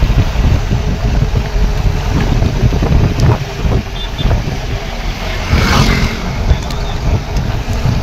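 Wind buffeting the phone's microphone over the rumble of a moving vehicle, recorded through its open window, with a brief louder rush a little before six seconds in.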